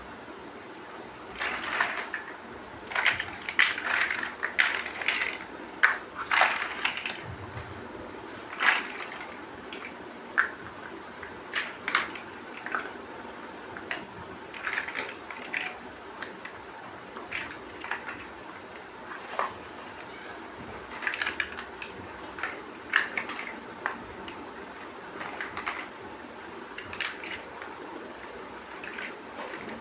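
Plastic Lego bricks clicking and rattling as they are handled and pressed together. The sharp clicks come in irregular clusters, busiest in the first third.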